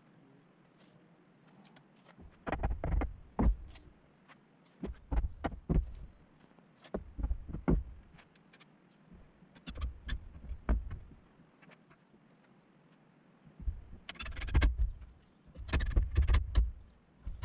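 Handwork on a wooden table frame: about six separate bursts of knocking, clicking and rubbing, each around a second long, with quiet gaps between.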